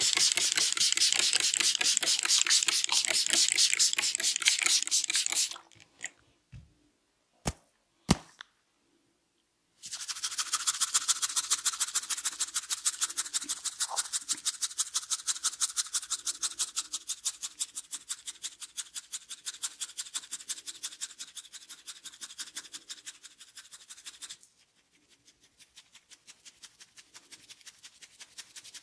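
Hands vigorously rubbing a person's hair and scalp in a head massage: a rapid, rhythmic, scratchy rustle of about four or five strokes a second. About a fifth of the way in it stops for a few seconds, broken only by three sharp clicks, then resumes and turns softer near the end.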